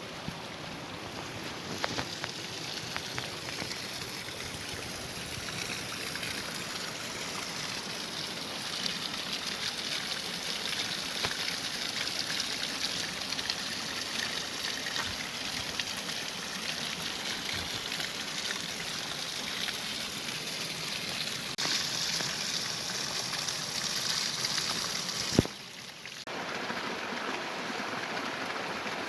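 Running water, a steady rushing hiss like a stream. A single sharp click comes about 25 seconds in, and the water is a little quieter after it.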